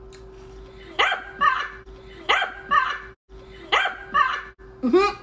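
A dog barking in quick pairs of short barks, three pairs about a second and a half apart, then one more bark near the end.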